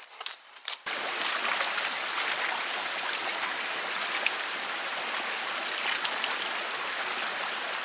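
A few footsteps, then, cutting in sharply just under a second in, a steady rush of water that runs on evenly.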